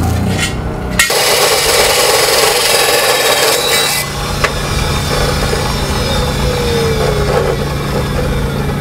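Music for about the first second, then an abrasive cut-off saw starts cutting: a steady, loud grinding noise over the constant hum of its motor.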